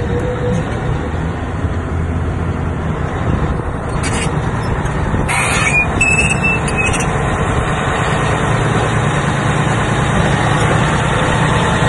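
Caterpillar D10N dozer's V12 diesel engine running steadily, with a short high-pitched squeal about halfway through.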